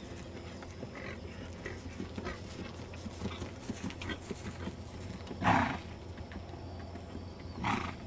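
Paint stallion being ridden at a canter, with soft irregular hoofbeats and two loud short blowing snorts, the first about five and a half seconds in and the second about two seconds later.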